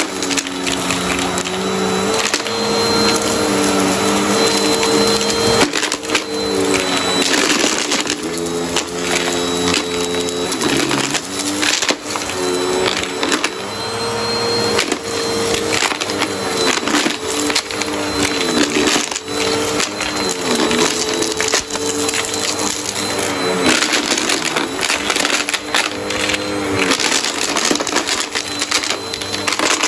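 Upright vacuum cleaner running on a thick shag rug, its motor hum wavering and dipping in pitch several times over a thin steady high whine. Debris and lint crackle and rattle as they are sucked up through the brush roll.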